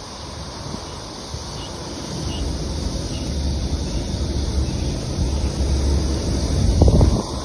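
Wind buffeting the microphone of a moving bicycle: a rushing noise with a low rumble that grows louder about two seconds in and peaks near the end.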